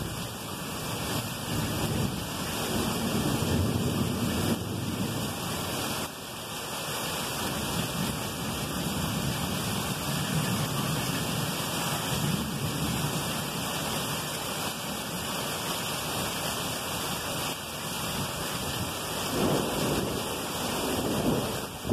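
Heavy thunderstorm rain falling steadily, with low rolling rumbles of thunder that swell a few seconds in, again midway, and once more near the end.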